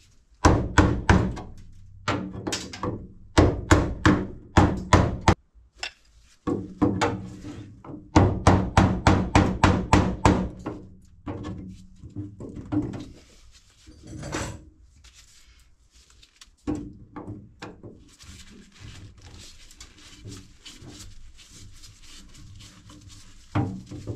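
Runs of rapid hammer blows, about four or five a second, knocking at the old wooden B-pillar in a 1930 Ford Model A coupe body to break the stuck wood loose. The blows are heavy in the first half and turn to fainter, quicker knocks later.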